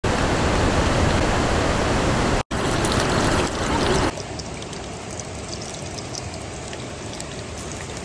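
A rushing river, a steady loud wash of water that drops out for a moment about two and a half seconds in. About halfway through it gives way to quieter oil sizzling and crackling as battered chicken nuggets fry in a small pot on a portable gas stove.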